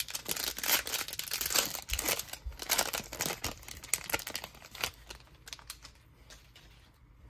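Wrapper of a Panini Prizm baseball card pack being torn open and crinkled, a dense run of crackles that thins out after about five seconds.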